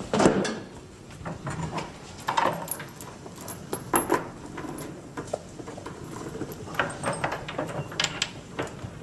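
Junk being handled on a cart: irregular metallic clinks and knocks, with a few louder thumps.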